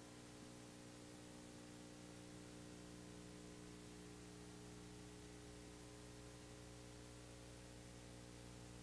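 Near silence: the steady hiss and low electrical hum of a soundless recording.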